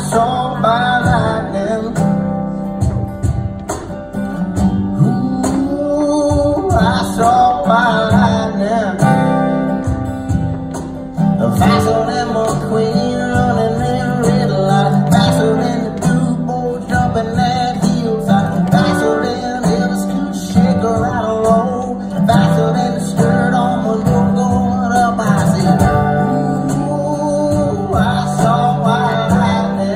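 Live acoustic song: two acoustic guitars strummed and picked, with a steady low bass pattern and a melody line moving above it.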